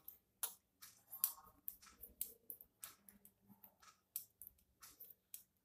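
Faint, irregular light clicks and clinks of hand-knitting: knitting needles working stitches two together, and glass bangles on the knitting wrist.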